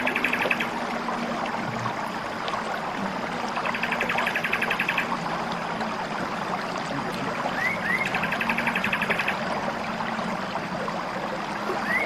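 A bulbul singing the same short phrase over and over, about every four seconds: two quick rising notes, then a rapid, even trill lasting about a second. Under it runs a steady background hiss with a faint low hum.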